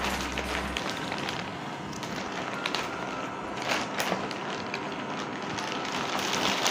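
Clear plastic wrap crinkling and crackling in irregular little snaps over a steady hiss, around a roll-packed foam mattress as it expands and is handled.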